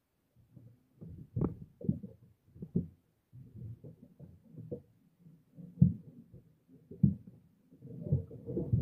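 Muffled, irregular thumps and rubbing on a cellphone microphone that is wrapped or covered against sea spray, as a nylon handline is hauled in by hand. A few sharper knocks stand out, and it gets busier near the end.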